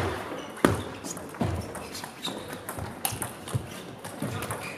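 Table tennis rally: the celluloid-type ball clicking off rubber bats and the table in quick succession, about every half to three-quarters of a second, with the thud and shuffle of the players' footwork on the hall floor. A hall murmur runs beneath.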